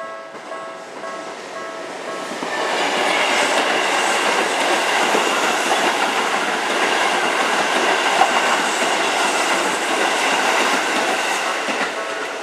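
A level-crossing alarm sounds its Tokyu-style electronic warning tone, repeating about two or three times a second. About two seconds in, a Keisei Main Line train passes over the crossing and drowns it out for about ten seconds. The alarm is heard again near the end as the train clears.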